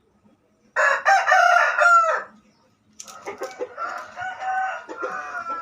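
A rooster crowing: one loud crow starting about a second in and lasting about a second and a half, falling in pitch at the end, then a second, quieter crow from about halfway through.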